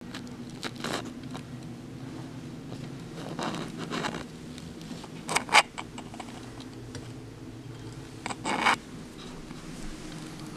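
Scattered short scrapes and clicks from a cat moving about on a stainless-steel sink and a plastic milk-jug ring being handled at the faucet, the loudest a sharp pair of clicks a little past the middle. A steady low hum runs underneath.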